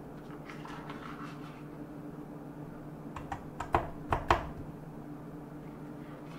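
KitchenAid Classic Plus stand mixer running at low speed with a steady hum, beating butter, sugar and cream cheese with light ticking. About four seconds in, a quick run of three or four sharp knocks stands out as the loudest sound.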